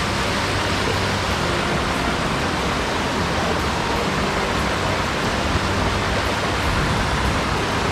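Mountain headwater stream rushing, a steady even hiss of running water.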